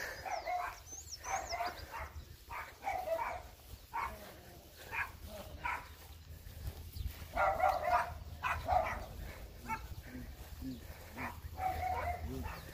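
Dog barking repeatedly in bouts of short barks, loudest a little past halfway, over a steady low rumble.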